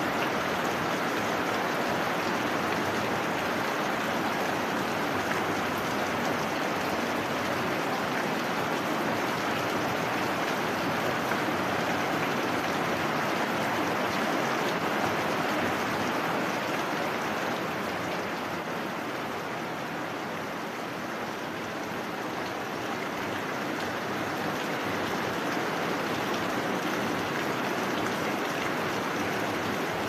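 Steady heavy rain: an even, dense hiss of downpour that eases a little about twenty seconds in.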